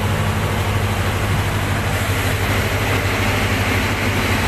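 Powercity marine generator running steadily at 1,500 rpm under electrical load: a loud, even engine drone with a strong low hum.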